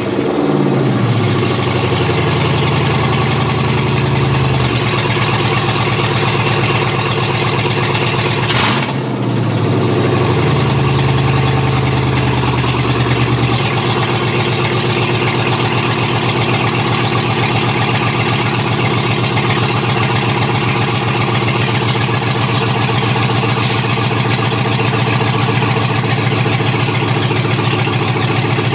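Chevy 6.0-litre LS V8 running loud on an engine stand through open exhaust, just after its first start on a standalone wiring harness. The revs swing up and back about nine seconds in, then the engine settles into a steady idle.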